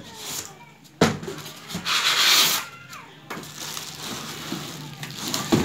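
Clear plastic wrapping crinkling and rustling against the cardboard of a shipping box as a packaged dholak is handled. There is a sharp knock about a second in and another near the end.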